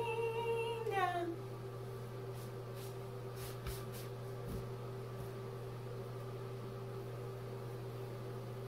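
A woman's voice holding one hummed or sung note, which slides down and stops about a second in. After that there is a steady low electrical hum in a small bathroom, with a few faint clicks as she handles her hair.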